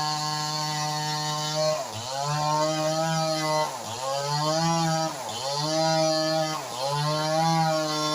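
Multipro 58cc two-stroke chainsaw running at high revs. Its engine speed dips sharply and climbs back four times, about a second and a half apart.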